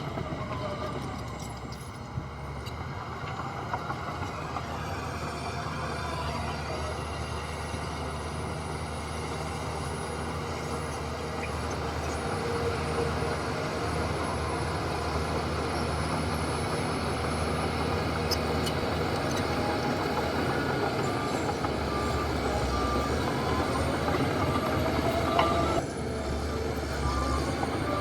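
Diesel engines of heavy earthmoving machinery running steadily under load. Near the end a reversing alarm beeps at an even pace.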